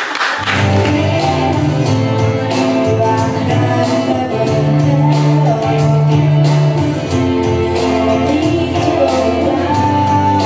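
A live band starts a song about half a second in: a drum kit keeps a steady beat under sustained low bass notes and keyboard, with a girl singing lead into a microphone.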